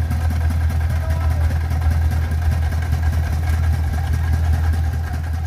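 Three-wheeled dump truck's small engine idling steadily with an even low chugging pulse.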